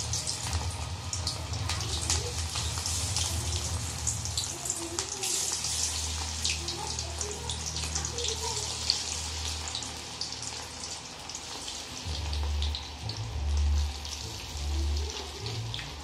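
Masala-coated cauliflower florets deep-frying in hot oil in a steel pot: a dense, steady crackling sizzle full of small pops as more pieces are dropped in.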